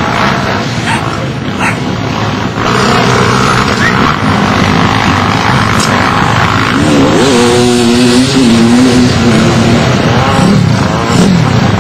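Pit bike engines running and revving, one rising in pitch about seven seconds in and then holding steady.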